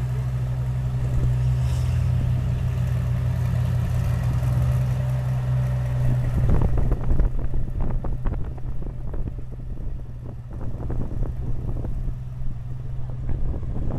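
Tractor engine running at a steady speed while under way, a low even drone. About halfway through, irregular rattles and knocks join in.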